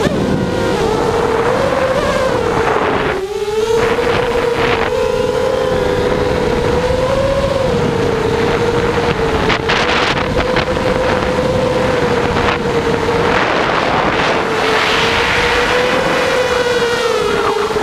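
FPV quadcopter's electric motors and propellers buzzing steadily, the pitch wavering up and down and dipping briefly about three seconds in, with wind rushing over the onboard camera's microphone.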